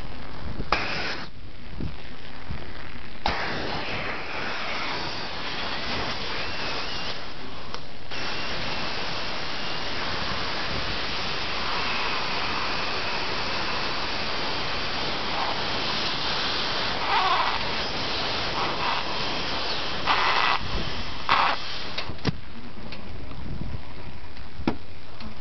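Compressed air hissing from an air nozzle into a plastic soda bottle, mostly steady with a faint whistle at times, plus a short burst about a second in and a few short bursts near the end.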